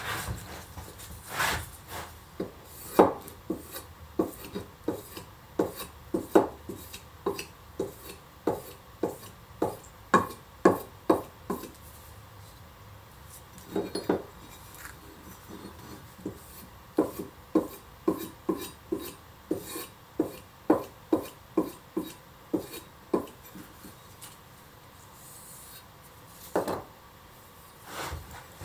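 An old hand-forged axe head being sharpened by hand: short strokes along the steel edge at about two a second, in runs broken by two short pauses.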